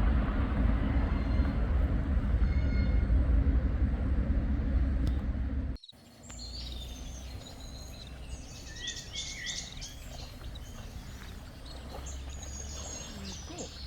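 A loud, steady rumbling noise cuts off abruptly about six seconds in. Then comes a quieter outdoor background with several birds chirping and calling.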